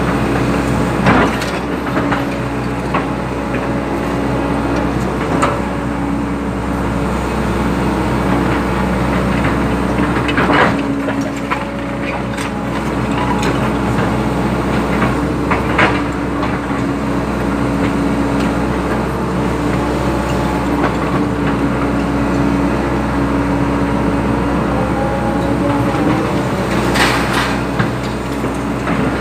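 Hydraulic excavator's diesel engine running steadily under working load, with a few sharp metal clanks as the machine digs and moves soil.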